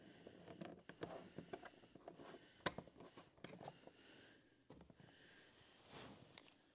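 Faint clicks and scrapes of a screwdriver backing Phillips screws out of plastic interior door trim, with one sharper click between two and three seconds in.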